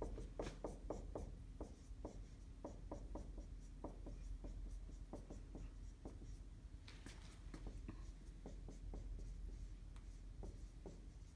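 Dry-erase marker writing on a whiteboard: an irregular run of short strokes and taps as letters are written out.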